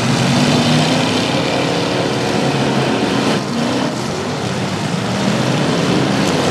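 Several demolition derby trucks' engines running and revving together in a loud, wavering mix. A single crunch of a collision comes about three seconds in.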